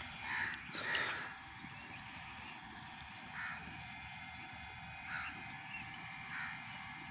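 Birds calling: a handful of short calls, two close together in the first second, then single calls every second or two.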